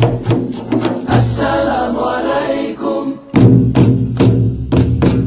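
Music: the instrumental opening of a Malay song, with sustained chords and regular percussion beats that break off briefly about three seconds in.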